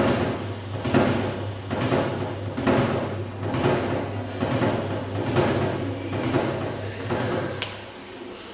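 Washing machine in its wash cycle: laundry and water swishing about once a second over a steady motor hum. A click comes near the end, and the hum and swishing stop.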